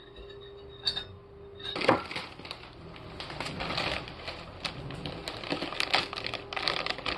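Plastic cereal bag crinkling and rustling as it is handled and pulled open, a dense run of crackles. A single sharp knock comes just before, about two seconds in.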